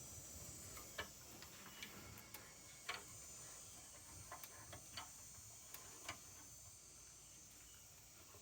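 A few faint, scattered clicks and light taps of a wrench and metal hydrant parts being handled during reassembly, over near silence.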